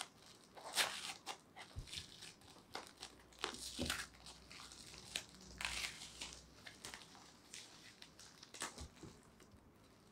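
Packaging wrap being pulled and torn off a parcel by hand: irregular crinkling, crackling and tearing, thinning out near the end.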